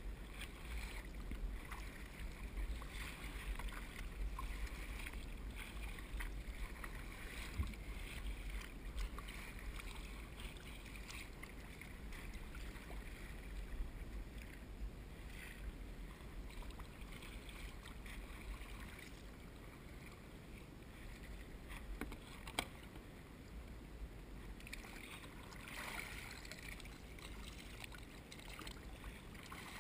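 Sea kayak being paddled through choppy water: paddle blades dipping and splashing and water slapping against the hull, over a steady low rumble, with a couple of sharp knocks.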